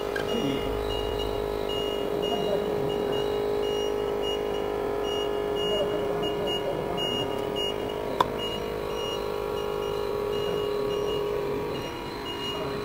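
Steady electrical hum from a phone-screen frame-and-glass separator machine, with a faint high beep pulsing about three times a second; the hum breaks off briefly near the end. A single sharp click sounds about eight seconds in.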